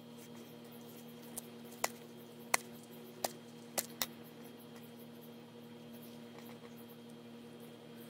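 A handful of sharp little clicks and taps in the first half as flower stems are fitted into a cardboard card on a wooden tabletop, over a steady faint hum.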